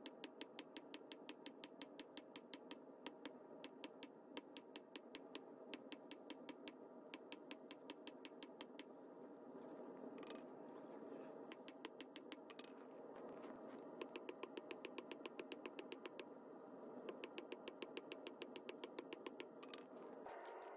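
Hand hammer striking a hot quarter-inch steel bar on an anvil in quick, even, light blows, about four a second, forging a taper on the end of the bar. The hammering thins out for a few seconds near the middle, then picks up again.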